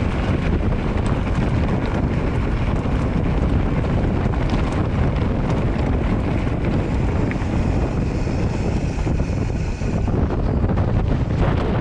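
Wind buffeting the microphone: a loud, steady rumbling noise with no breaks.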